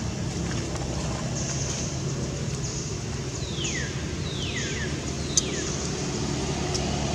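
Steady low outdoor background noise, with three high squeals in the middle, each sliding down in pitch, and a single sharp click just after the last one.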